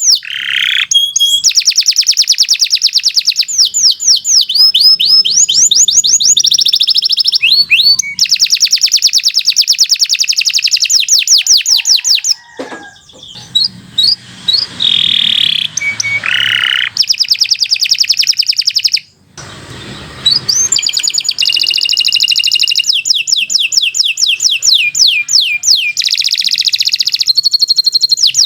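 Domestic canary singing a long, continuous song of fast repeated sweeping trills and buzzy held rolls. The song is quieter and broken up in the middle, with a short break about two-thirds of the way in.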